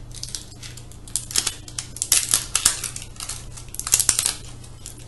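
Sealed plastic packaging of mystery toy containers being opened by hand: crinkling and rustling with sharp plastic clicks, in several short spells, the loudest about two seconds and four seconds in, over a faint steady hum.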